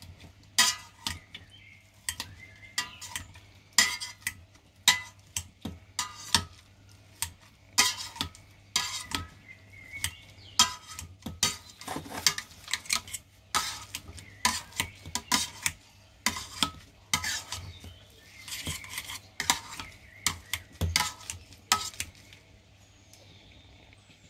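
Hand potato masher mashing boiled potatoes in a stainless steel pot: repeated metallic clanks against the pot, about one or two a second, each with a short ring. The strokes stop a couple of seconds before the end.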